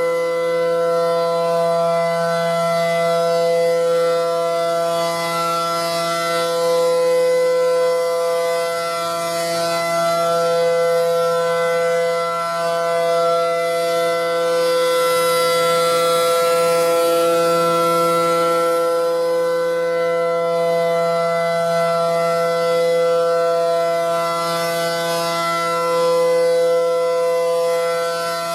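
Outdoor tornado warning siren sounding a steady tone at a constant pitch, swelling and dipping a little in loudness.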